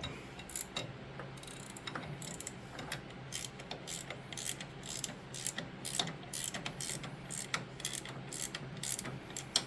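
Ratchet wrench clicking in quick, uneven strokes as the bolts holding the snowblower's new friction wheel are tightened.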